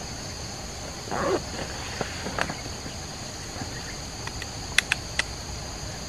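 Steady high drone of insects, with a few sharp clicks from the air rifle being handled: two about two seconds in, and a quick run of three louder ones near five seconds.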